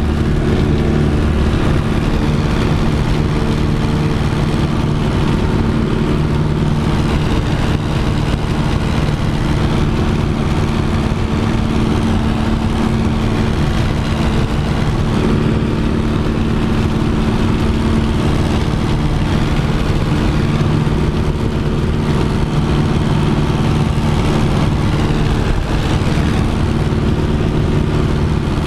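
Piper J-3 Cub's engine and propeller running steadily at climb power during takeoff and climb-out, heard from inside the cockpit as a loud, even drone.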